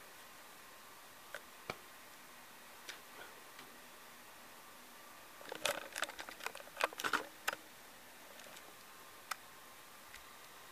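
Handling noise from a handheld camera: a few scattered sharp clicks, then a dense run of clicks and rubs for about two seconds around the middle, over quiet room tone with a faint steady tone.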